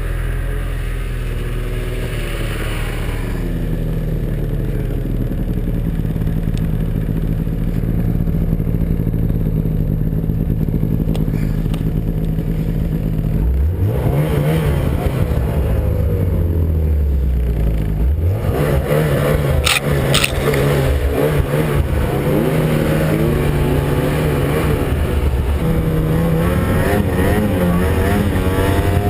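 Snowmobile engine running under load, its pitch rising and falling as the throttle changes, with a sharp rev and drop about halfway through.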